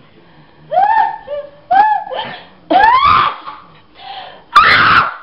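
A person's sneeze fit: three high, rising 'ah' gasps, one after another, then a loud, noisy sneeze burst near the end.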